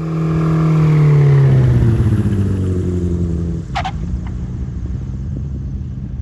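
Just Aircraft Highlander light aircraft flying past, its engine loud and dropping in pitch over the first two seconds as it goes by, then running on steadily.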